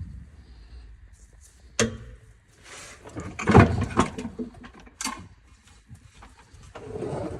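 Handling noise from work on a van: sharp knocks about two and five seconds in, with a louder scraping clatter between them.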